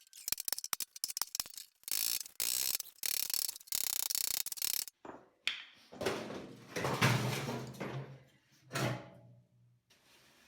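Metal bodywork on a steel car fender: a fast run of sharp taps and clicks, then a few seconds of harsh, hissy noise, then a lower rumbling stretch with a steady hum that fades near the end.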